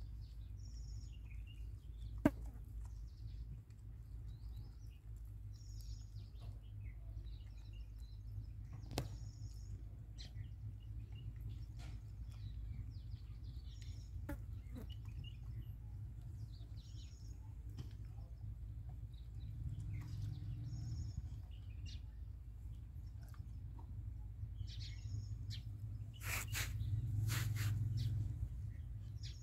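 Small birds chirping now and then over a steady low outdoor rumble, with a single sharp click a couple of seconds in and a louder rush of noise near the end.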